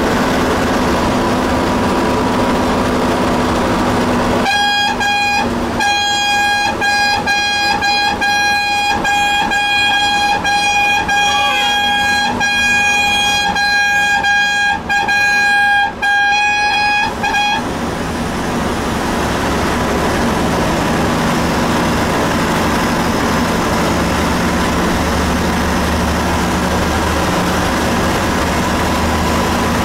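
Bus horn honking in a long run of short, repeated blasts on one steady high pitch, starting about four seconds in and stopping a little past halfway, over the steady running of the bus engine and tyre noise on the highway.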